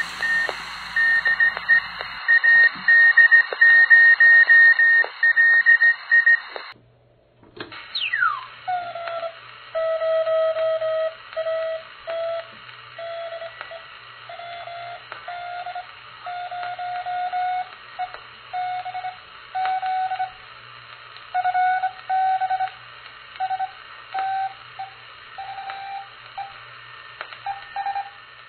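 Hand-sent Morse code heard through a shortwave amateur radio receiver over steady hiss. A higher keyed tone comes first; after a brief dropout, a whistle slides quickly down in pitch, and then a lower keyed tone spells out a station's reply.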